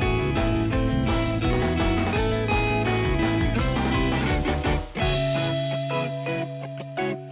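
Background music led by guitar with a steady beat. About five seconds in it drops to a long held low note with a few sparse notes above it.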